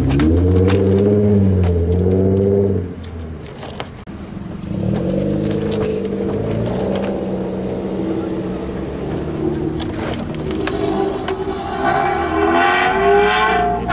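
Engines of lowered, modified cars revving as they pull away one after another, the exhaust note rising and falling in pitch, with a few short clicks.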